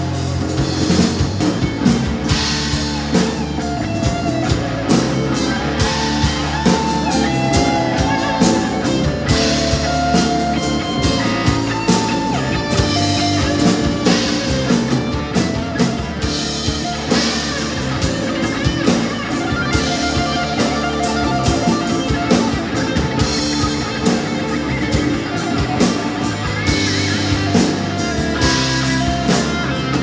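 Live rock band playing an instrumental passage of the song, with guitar carrying a wavering melody line over bass and drum kit.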